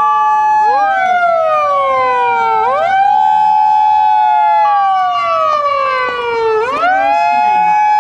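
Several fire engine sirens wailing together and out of step. Each one rises quickly, holds its pitch, then slides slowly down about every four seconds, and a steady single tone sounds briefly at the start and again about two-thirds through.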